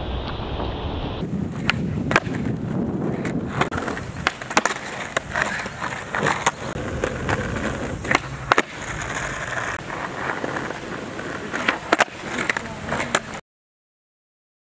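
Skateboard wheels rolling on a concrete street, broken by sharp clacks as the tail pops and the board lands on flip tricks such as a fakie double flip. The sound stops abruptly near the end.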